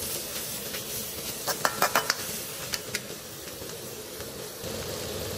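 Shredded chicken with onion and capsicum sizzling in an iron karahi while a steel ladle stirs it, scraping and clinking against the pan several times about one and a half to two seconds in.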